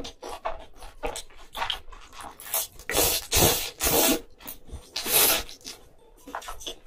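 Close-miked slurping of spaghetti noodles, with three long slurps starting about two and a half seconds in, between short wet smacks and clicks of chewing.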